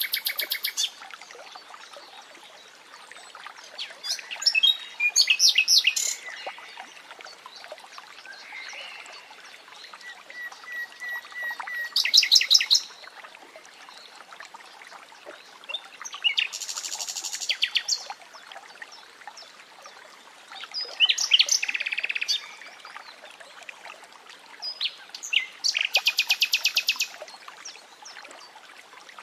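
Nightingale singing in separate phrases a few seconds apart, made of fast repeated notes, dry rattles and a run of whistled notes that grows louder, over a faint steady sound of running water.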